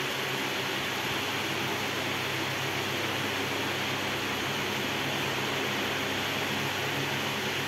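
Steady hum of ship's machinery and ventilation: an even hiss with a low drone underneath, unchanging.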